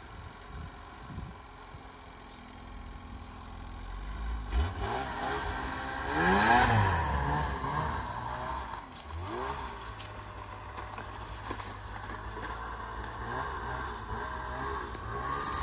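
Snowmobile engine revving as the sled drives off. The revs climb sharply to a loud peak about six seconds in, then rise and fall in shorter pulls as it moves on.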